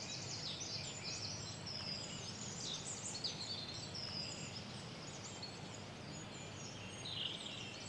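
A chorus of many songbirds singing at once, a dense mix of overlapping high chirps and trills, busiest in the first few seconds.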